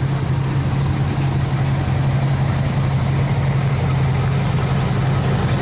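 1980s square-body pickup truck engine idling steadily, an even low drone with no revving.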